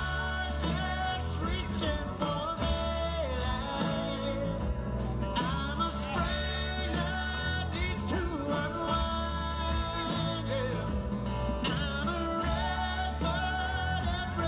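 Live band music: a male lead vocal sung over strummed acoustic guitars and an electric bass, in a country-rock style.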